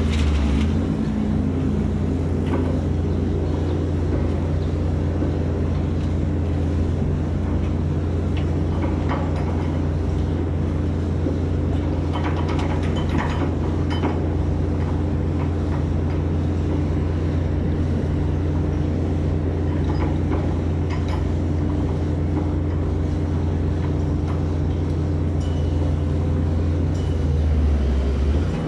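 Giken Silent Piler hydraulic press-in pile driver and its hydraulic power unit running with a steady low drone. The pitch shifts briefly about half a second in and again near the end, with a few faint knocks around the middle.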